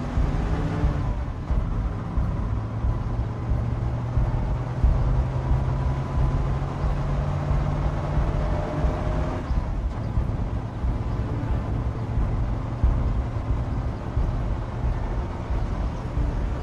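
Vehicle engine running with a heavy road rumble. The engine note holds steady, then changes about nine or ten seconds in.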